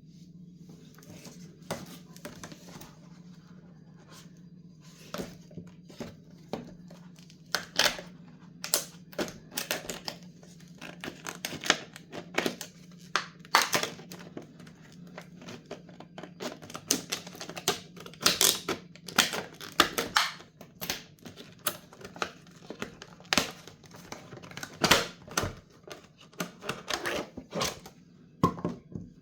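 Hands unpacking a wireless doorbell kit: irregular clicks, taps and rustles of plastic parts and packaging being handled, over a steady low hum.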